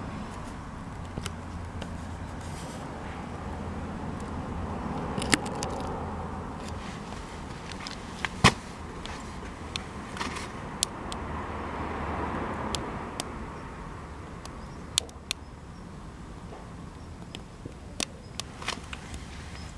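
Cedar offcuts burning in a campfire, with sharp pops and crackles scattered irregularly, the loudest a little over eight seconds in. Underneath runs a steady low rumble that swells twice.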